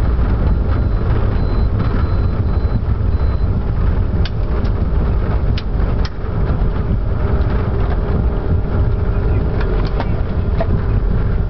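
Steady low rumble inside a Challenger 605 business jet as it rolls out and taxis after touchdown, its two turbofan engines near idle. There is faint high beeping in the first few seconds and a few sharp clicks around the middle.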